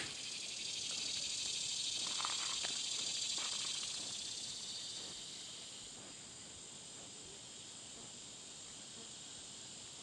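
A high, hissing insect buzz that swells for about four seconds and then fades away.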